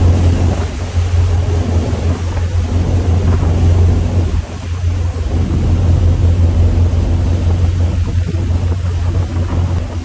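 Motorboat engine running with a steady low hum, over the rush of the churning wake and wind on the microphone. The hum dips briefly about halfway through.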